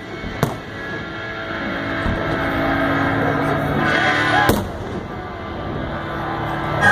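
Aerial firework shells bursting over music: three sharp bangs, one just after the start, one about halfway through and one at the end, with smaller crackles in between.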